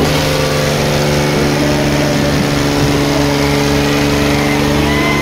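Diesel engines of an Eicher 5660 and a Mahindra Arjun Ultra 555 tractor running steadily at full load as the two tractors, chained back to back, pull against each other in a tug-of-war.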